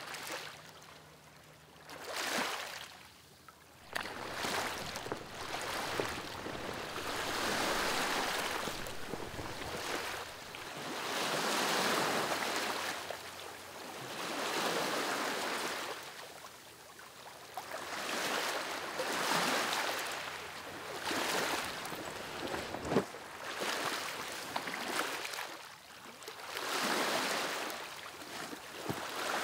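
Sea waves breaking and washing up on a sandy beach, each wash swelling and fading over a few seconds, with a single sharp knock about 23 seconds in.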